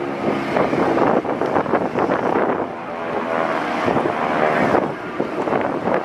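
Propeller warbird engine running overhead, a steady drone that comes and goes, with heavy wind buffeting the microphone.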